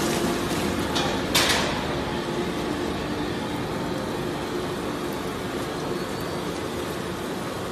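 Plastic grinder and conveyor line running with a steady noise and a low hum, as shredded plastic flakes pour onto a pile. A single sharp crack about a second and a half in.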